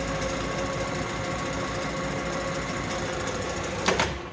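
Leblond Regal gear-head lathe running steadily, a constant gear whine over a low hum. Near the end there is a sharp clunk, and the running sound dies away after it as the lathe stops.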